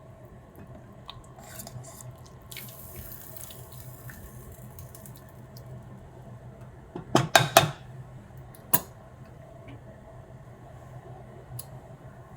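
Basmati rice and water simmering in an open pressure cooker, a soft bubbling over a steady low hum. A little past halfway comes a quick cluster of sharp knocks, with one more a second later, from the stirring spoon against the pot.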